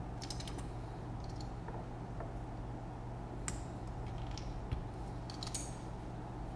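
Light clicks and taps of a hex driver and small screws against a carbon-fibre drone frame as screws are undone, a few scattered ticks about a second apart, over a steady low hum.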